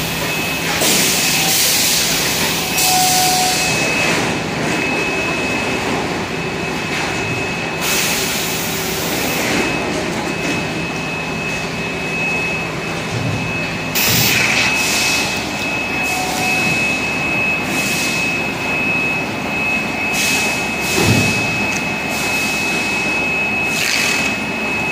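Bottling-plant machinery running: a steady mechanical din with a thin, constant high whine, broken by several short bursts of hissing.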